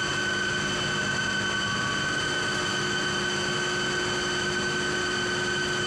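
Steady drone of cooling-tower plant machinery, electric motor-driven water pumps running, with a constant high whine over a rushing hiss.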